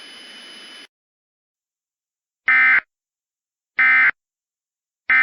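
Emergency Alert System end-of-message signal: three short, identical bursts of warbling digital data tones, about a second and a bit apart, that mark the end of the alert. Before them, a faint hiss cuts off just under a second in.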